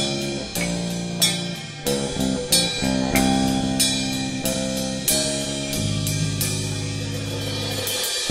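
Live rock band playing an instrumental passage: held guitar and bass notes under regular drum and cymbal hits. The band breaks off briefly just before the end.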